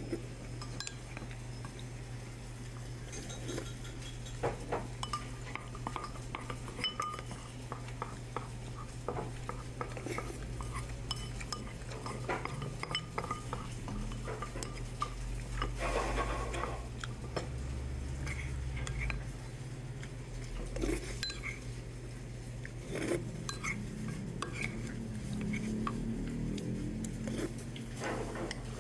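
Wooden spoon scraping and tapping against a ceramic bowl in many short, irregular clicks and scrapes, scooping up the last grains of rice, over a steady low hum.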